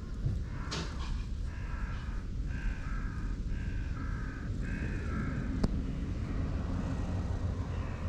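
A crow cawing in a run of about six short caws, over a steady low rumble of wind on the microphone. There is one sharp click about five and a half seconds in.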